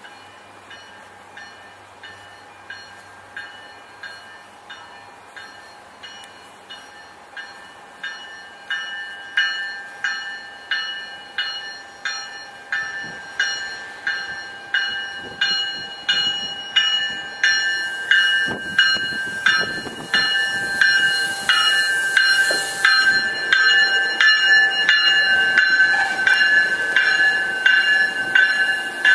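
An MBTA commuter rail train's bell ringing about once a second as the train approaches, growing steadily louder as it comes into the station. From about halfway through, the train's rumble joins in, with a brief hiss.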